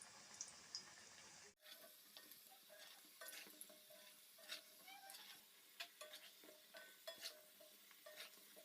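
Faint sizzling of singaras deep-frying in oil over low heat, with scattered small pops and crackles.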